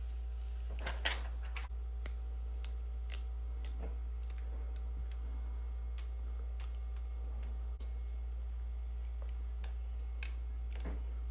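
Light, irregular clicks and taps of small repair tools working on a phone, about one or two a second, over a steady low hum.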